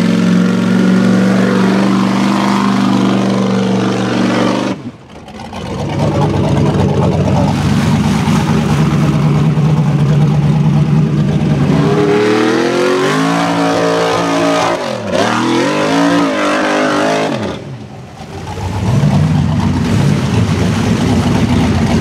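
Rock bouncer buggy's engine running at high revs, then revving up and down several times in the middle; the sound drops away briefly twice.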